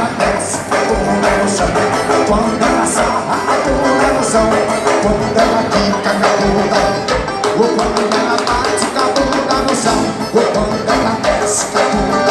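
Live band playing an instrumental dance number with percussion and a steady, pulsing bass beat.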